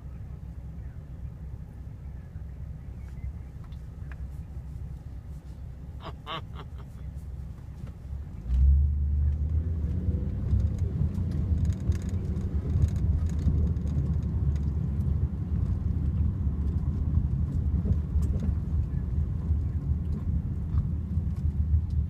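Car cabin rumble from engine and tyres while riding in a taxi, which steps up sharply about eight and a half seconds in and stays louder as the car gets moving. A short cluster of pitched pulses about six seconds in.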